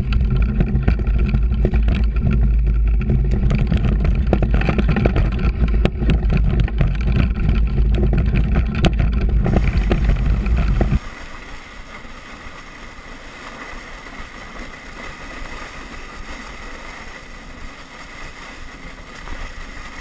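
Off-road motorcycle engine running hard, with knocks and rattles from the rough trail, heard through a camera mounted on the bike. About eleven seconds in the engine cuts off abruptly, leaving a quieter steady rushing of wind and runners sliding on snow.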